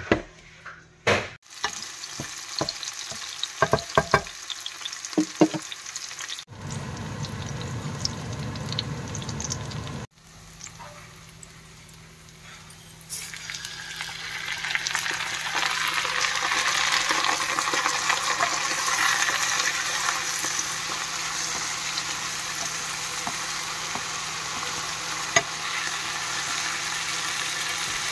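Knocks and clatter at first, then frying in a non-stick pan: washed rice is tipped onto fried red onions about halfway through and stirred with a wooden spatula, under a steady sizzle.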